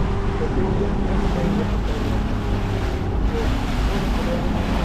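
A fishing boat's engine running steadily under way, with water rushing past the hull and wind buffeting the microphone.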